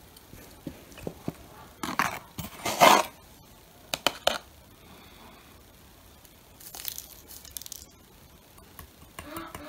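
A cardboard box of baking soda being handled and opened on a table. There are a few light knocks and clicks, and louder rustling of cardboard about two to three seconds in and again near seven seconds.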